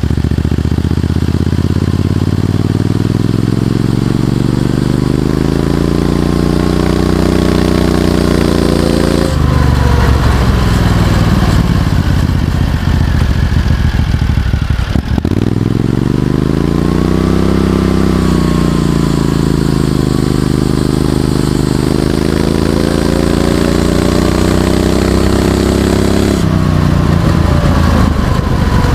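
Predator 670cc V-twin engine driving a go-kart, its revs climbing for several seconds, breaking off abruptly about nine seconds in, then rising and falling again as the throttle is worked.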